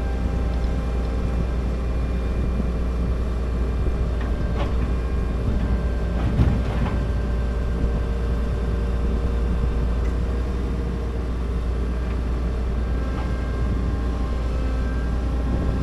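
John Deere combine's engine running steadily, a low rumble heard from inside the cab, with a single knock about six seconds in.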